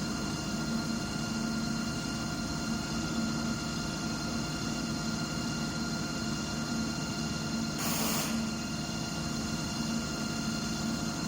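CNC lathe running a turning program: a steady machine hum with several steady whine tones over it. A short hiss about eight seconds in.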